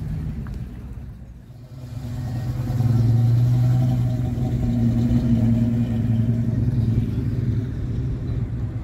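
Passing car engines at walking pace. A C5 Corvette's V8 fades away during the first second or so. About two seconds in, a classic Chevrolet Impala's engine grows loud and holds a steady low drone as it crawls past, easing slightly near the end.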